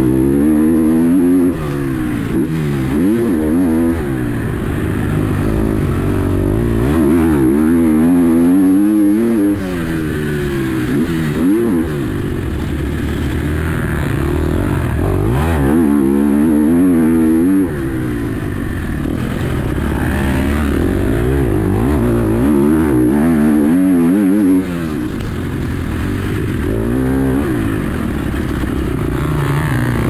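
KTM SX-F four-stroke single-cylinder motocross engine under hard riding. The revs climb and fall again and again as the bike accelerates and shifts, and the level drops suddenly several times when the throttle is shut off.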